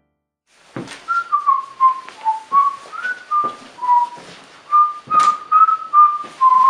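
A person whistling a cheerful tune of short notes, with sharp taps falling roughly on the beat.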